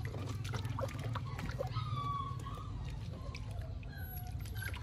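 A puppy being scrubbed with soap in a plastic tub of water: wet rubbing and light splashing. Two short, high animal cries come about two and four seconds in.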